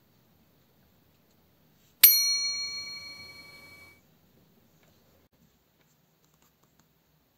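A single bell ding, struck once about two seconds in. It rings with several clear pitches and fades for about two seconds, then cuts off abruptly.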